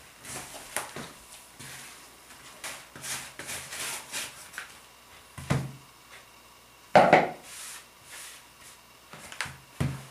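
Hands kneading and squishing soft, sticky yeast dough in a plastic bowl, with a few knocks of the plastic bowl against the table, the loudest about seven seconds in.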